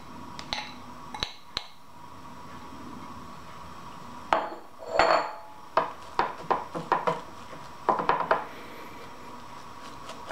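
Metal spoon clicking and scraping against a glass baking dish while sticky marshmallow rice-cereal mixture is pressed down. There are a few light clicks, a louder scrape about four to five seconds in, then a quick run of clicks near the end.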